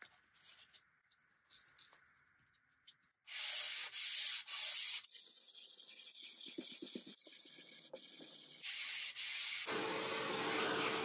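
A wooden door panel, faced with mahogany veneer, being hand-sanded with a sanding sponge. After a few light handling clicks come three loud rasping strokes, then a steadier scrubbing. Near the end a steady noise with a faint hum takes over.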